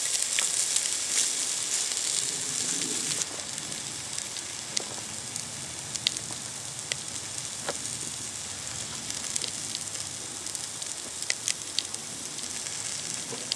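Asparagus sizzling in a hot cast-iron Dutch oven just taken off the fire: a steady hiss with scattered small pops, the iron still holding enough heat to keep cooking. The hiss drops to a lower level about three seconds in.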